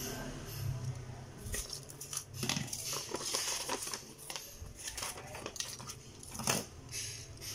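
A paper instruction sheet rustling and crinkling as it is unfolded, held up and laid flat. Light clicks and scrapes of a small plastic spinning top and a box cutter being handled come before it.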